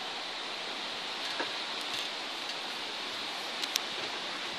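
Steady rain falling, an even hiss, with a few short sharp ticks, the loudest pair about three-quarters of the way through.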